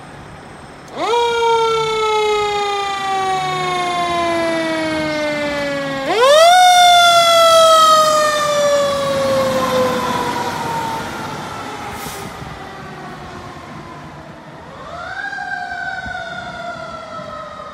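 Fire truck siren sounding three times: each time it winds up quickly, then slowly falls in pitch as it dies down. The second wind-up, about six seconds in, is the loudest; the third, near the end, is fainter.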